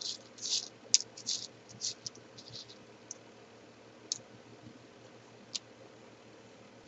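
Small cardboard jigsaw puzzle pieces clicking and scraping as they are handled and shifted on a tabletop: a quick run of light clicks in the first three seconds, then a few scattered ones.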